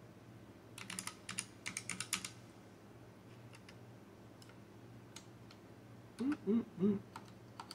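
Typing on a computer keyboard: two quick runs of keystrokes about a second in, then a few faint clicks. Near the end come three short voice sounds.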